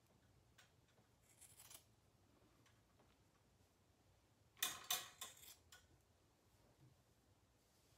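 Grooming scissors snipping through a dog's fur: a few soft snips about a second and a half in, then a quicker run of about five louder snips around the five-second mark.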